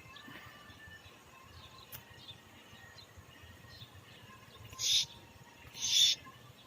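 A bird giving two short, raspy, hissing calls about a second apart, over faint high chirps in the background.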